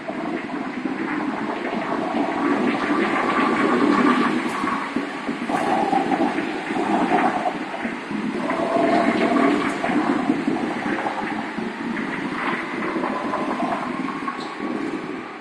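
Several go-kart engines running around an indoor track, their pitch rising and falling as the karts speed up and slow down through the corners, heard inside a large hall.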